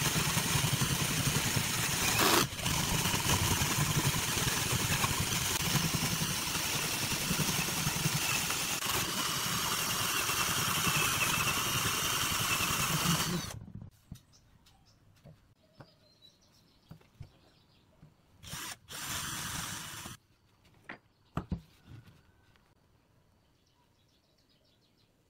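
Power drill boring into a pine block with a wood bit, running steadily for about thirteen seconds with a brief break about two seconds in, then stopping. A second short run follows a few seconds later, then a few small knocks.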